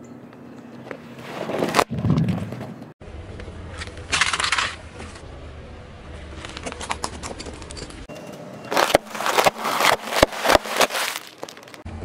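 A car tyre squashes balloons filled with water beads, then rolls over a row of plastic disposable lighters. The lighters break with a rapid run of sharp cracks and pops near the end.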